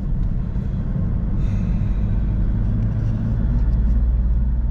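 Steady, low engine and road rumble heard from inside a moving vehicle, with a short hiss about a second and a half in.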